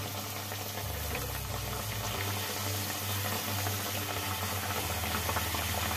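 Stuffed pea kachoris deep-frying in hot oil in a kadhai over a medium-high flame: a steady sizzling and bubbling hiss, with a low hum underneath.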